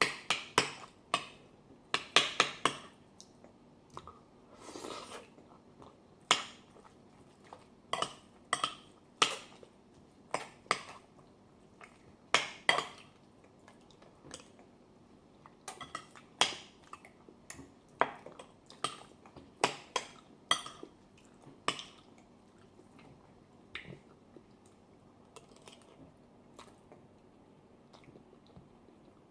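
Metal cutlery clinking and scraping on a plate in irregular sharp taps, some in quick clusters, with some chewing.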